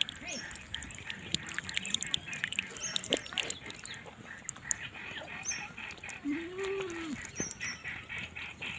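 A young goat kid drinking water from a cupped hand, with soft irregular wet lapping and splashing. About six seconds in there is one drawn-out bleat that rises and falls.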